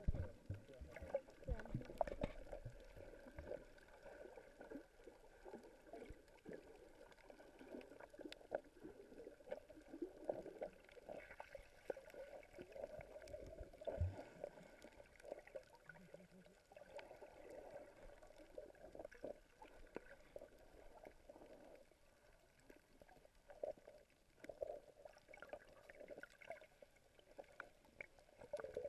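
Muffled water heard from a camera held underwater: irregular swishing and gurgling of moving water with scattered clicks and knocks, and one low thump about halfway through.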